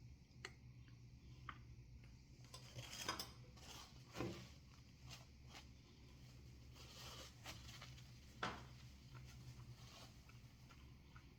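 Near silence over a low steady hum, broken by a few faint, scattered clicks and taps of a spoon being handled while hot sauce is tasted. The clearest taps come about three, four and eight and a half seconds in.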